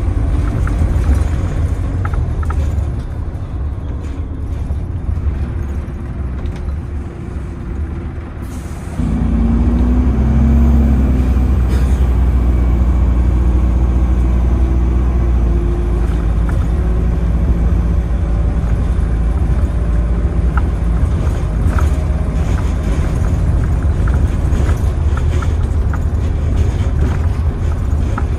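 Optare Versa bus heard from inside while driving: a steady engine and road rumble. About nine seconds in it becomes louder and fuller as the engine pulls harder, and it stays at that level.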